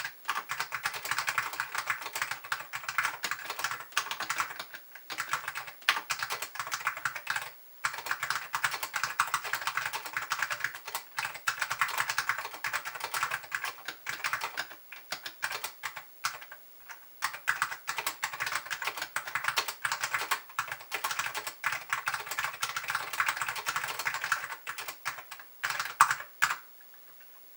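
Typing on a mechanical keyboard with Alps SKCM Orange switches (lubed and paper-modded, springs oiled) on a 1.2 mm plastic plate in a polycarbonate case, with M0116 keycaps: a steady, fast run of keystrokes. There is a brief pause about eight seconds in, and the typing stops near the end.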